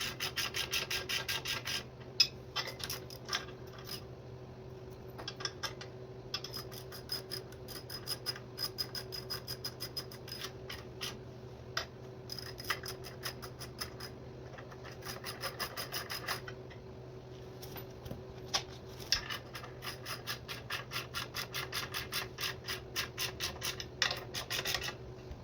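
Hand ratchet clicking in quick runs of a second or two with short pauses, as the clutch pressure plate bolts are run down and snugged onto the flywheel. A steady low hum runs underneath.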